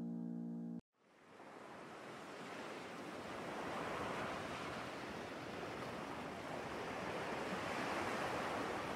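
A held chord from the intro jingle cuts off about a second in. Then the steady wash of sea surf fades in and carries on.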